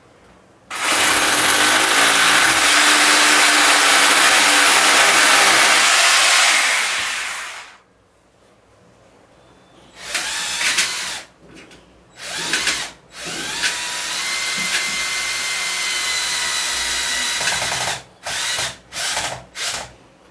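Electric power drill run in bursts: one long run of about seven seconds, two short bursts, a four-second run that rises in pitch as it spins up, then a quick string of short trigger pulses near the end.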